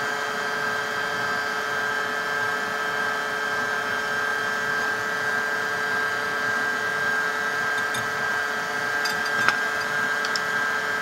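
Electric stand mixer running steadily, beating cake batter, with a constant motor whine. A single sharp click comes near the end.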